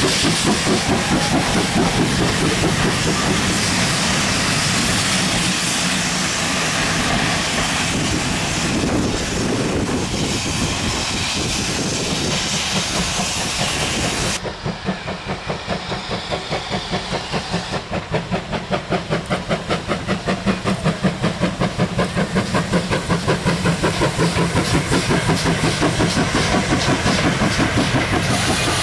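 A GWR 5101 class 'Large Prairie' steam tank engine working a train past, with a loud steady hiss of steam and exhaust. About halfway through the sound changes abruptly to an even, rapid rhythm of beats from the passing train, which grows louder and then holds steady.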